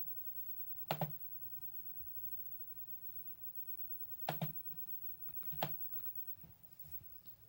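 Three sharp clicks on a laptop, one about a second in and two more a little past halfway, with a few fainter taps between them.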